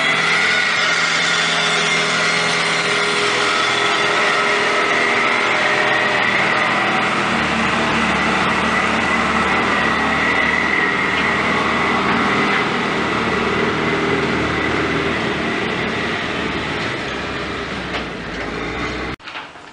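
Heavy machinery running loud and steady: an engine note with a high, even whine held over it. It cuts off abruptly near the end.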